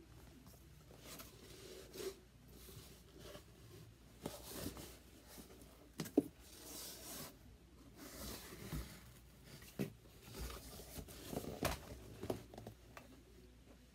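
A cardboard shipping box being handled and opened: its flaps rustle and scrape against each other, with scattered light knocks and taps and one sharper knock about six seconds in.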